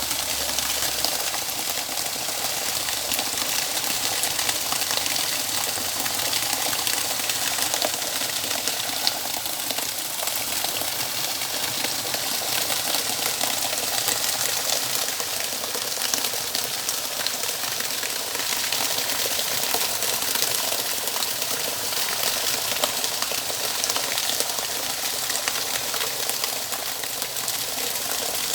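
Running water gushing and splashing steadily, without a break.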